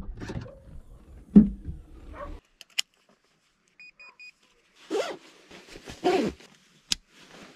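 Rustling and knocks of gear being handled, then three quick high beeps about four seconds in. Two zip pulls follow as a ski jacket is zipped up, and a sharp click near the end.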